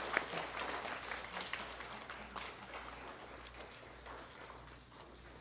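Audience applauding, the clapping dying away over a few seconds.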